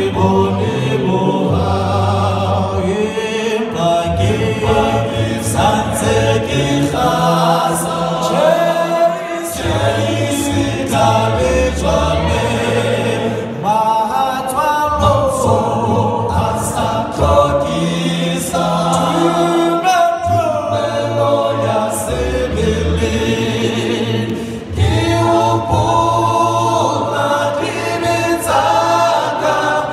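Male a cappella vocal group of seven singing in harmony into handheld microphones, amplified over the stage speakers, with a deep bass part held under the upper voices.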